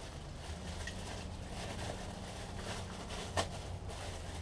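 Light handling knocks and ticks, with one sharper click about three and a half seconds in, over a steady low background hum.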